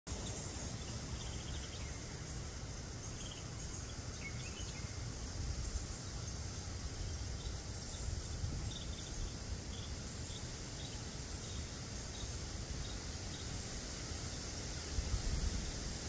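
Outdoor ambience: a steady high insect drone over a low rumble from wind or handling on the microphone, which swells briefly near the end. A few faint short chirps come through in the first half.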